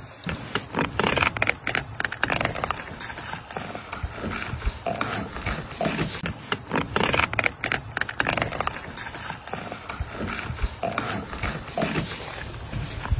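Fillet knife cutting and scraping through sockeye salmon on a wet cleaning table, with many irregular clicks and scrapes as the fish are handled.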